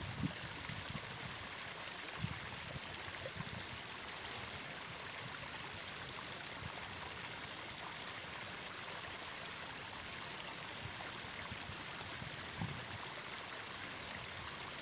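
Steady rushing hiss of river water flowing along the bank, with a few soft low thumps now and then.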